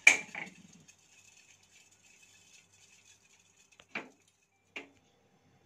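A sharp clack from the gas stove's burner knob being switched off, cutting the burner's hiss dead. Faint crackling from the hot pot follows, then two light clinks about four and five seconds in.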